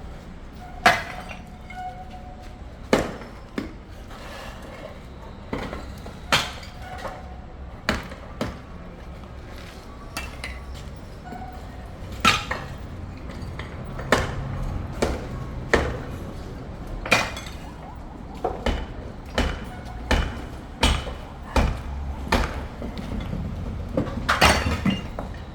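Irregular hammer blows and metallic clanks as a roof is taken apart. Some blows ring briefly. They come about one every second or two at first and faster from about halfway, over a low background rumble.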